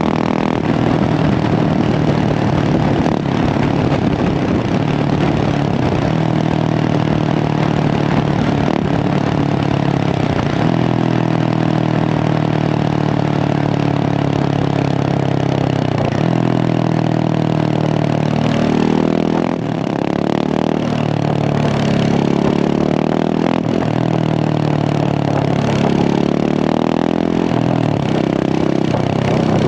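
Husqvarna 701 Supermoto's single-cylinder engine through a Remus exhaust, running at a steady note. In the second half it rises and falls in pitch several times as the revs go up and drop back.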